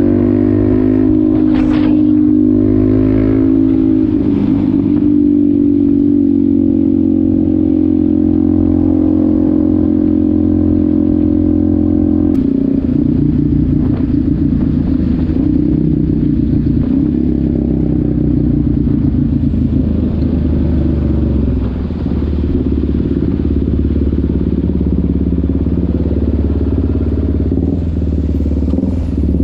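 Onboard sound of a Suzuki DR-Z400SM supermoto's single-cylinder four-stroke engine and exhaust while riding, holding steady revs at first. About twelve seconds in the engine note changes abruptly, then runs lower and less evenly.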